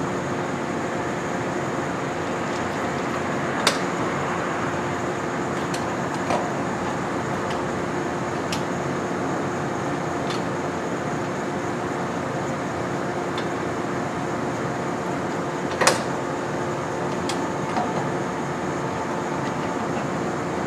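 Steady hum and hiss of a stationary electric train's onboard equipment, with a few sharp metallic clicks and knocks from the coupling gear between two cars as it is worked by hand. The loudest knock comes about two-thirds of the way through.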